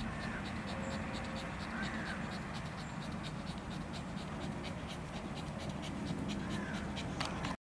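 Outdoor ambience with a steady low hum, a faint high ticking repeating about five times a second throughout, and a few short bird chirps.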